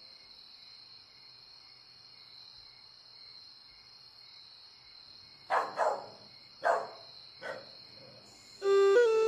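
Crickets chirring steadily in the background. Three short, loud noises come between about five and seven and a half seconds in, and instrumental music starts near the end.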